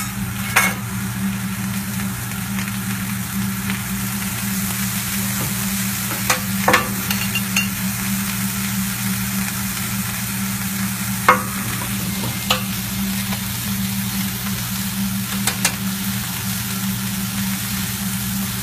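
Fried rice sizzling on a teppanyaki steel griddle as it is stirred, with a handful of sharp clicks of metal spatulas striking the plate. A steady low hum runs underneath.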